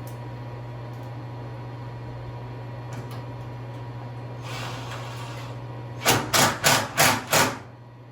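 Steady hum of a shop heater, then a brief rustle and five quick, loud knocks about three a second, from hand work fitting the intercooler's aluminium mounting brackets.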